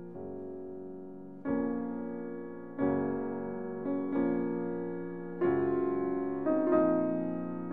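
Background piano music: slow chords struck every second or so, each ringing out and fading before the next.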